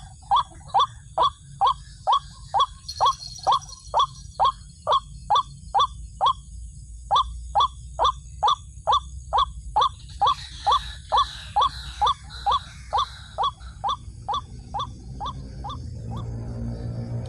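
A rail calling a long series of loud, evenly repeated down-slurred notes, about two to three a second, with a short break partway through.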